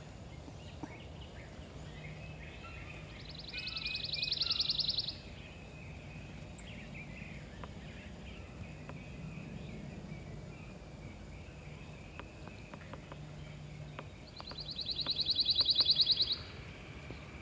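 A songbird singing a rapid, even trill twice, each trill about two seconds long and growing louder to its end. Softer chirps from other birds and a faint low hum run underneath.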